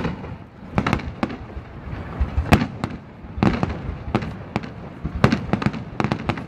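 Aerial firework shells bursting in quick, uneven succession: over a dozen sharp bangs, each trailing off in an echoing rumble.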